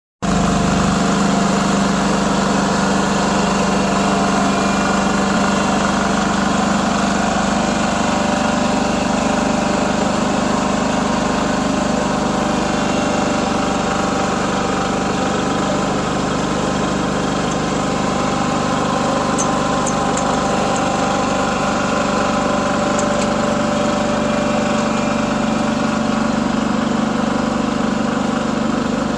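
Salsco mini asphalt paver's engine running at a steady speed, a constant engine hum, as the machine lays asphalt.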